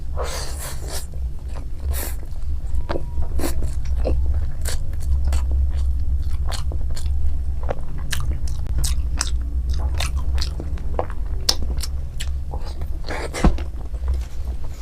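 A person chewing and eating spicy fried chow mein noodles with egg, with many short, sharp mouth clicks and smacks, over a steady low hum.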